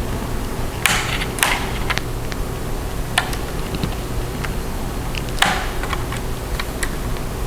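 Plastic clicks and short scrapes as the snap-on keyboard trim cover of a Dell Latitude E5450 laptop is pried and popped off. The loudest scrapes come about a second in and at about five and a half seconds, over a steady low hum.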